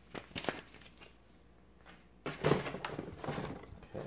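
Cardboard packaging being handled: two light knocks, then, from a little past halfway, a louder stretch of cardboard scraping and rustling as an inner cardboard section is worked loose.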